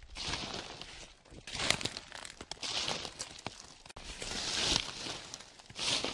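Footsteps crunching through dry fallen leaves on a forest floor: about five slow, evenly paced steps, each a crackly rustle of leaves crushed underfoot.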